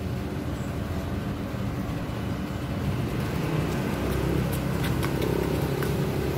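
A steady low engine hum, as of a motor vehicle running, with a few light taps in the second half.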